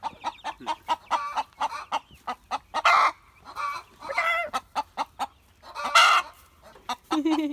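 Chickens clucking, several calls overlapping in quick succession, with louder calls about 3 and 6 seconds in.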